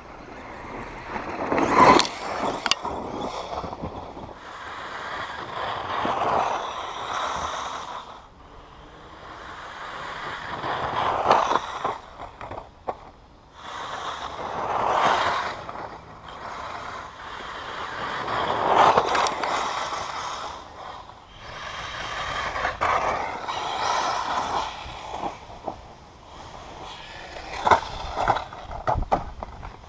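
Radio-controlled off-road car driving laps on a dirt track, its motor and tyres on loose dirt swelling and fading about every four seconds as it passes close by. Sharp knocks of hard landings or chassis hits stand out about two seconds in and in a quick cluster near the end.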